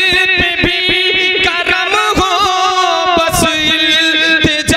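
A man singing a naat into a microphone, holding long, wavering notes with heavy vibrato over a quick regular beat.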